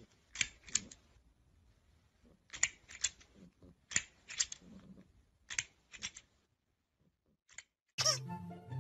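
Plastic extending crocodile grabber toy snapping its jaws: clusters of two or three sharp plastic clacks, about every second and a half, then one lone click. Music cuts in near the end.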